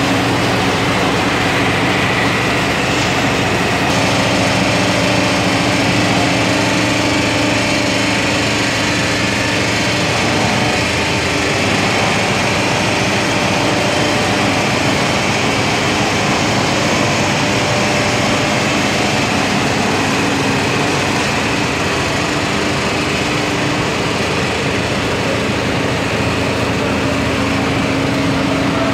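Industrial peanut deep-frying line running: electric drive motors and conveyor machinery making a loud, steady mechanical hum with a few constant tones.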